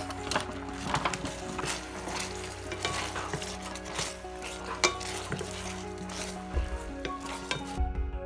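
Thick sweet and sour sauce bubbling and sizzling in a stainless steel pan while meatballs are dropped in and stirred with a wooden spatula, with many sharp knocks of spatula and meatballs against the pan. Near the end the sizzling stops and soft music takes over.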